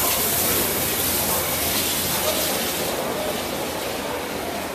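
Steam hissing from German 4-6-2 express steam locomotive 01 1075 as it moves slowly along the station track; the hiss eases a little toward the end as it draws away.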